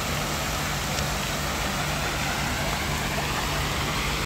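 Steady outdoor city ambience with a low, even hum of traffic, broken by a brief dropout at the very end.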